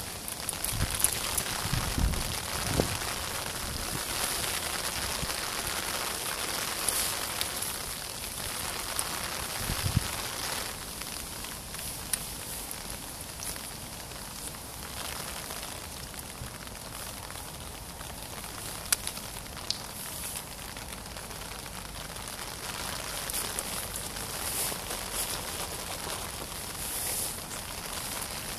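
Rain falling steadily, with scattered sharp ticks of drops landing close by. Two or three dull low thumps come in the first ten seconds.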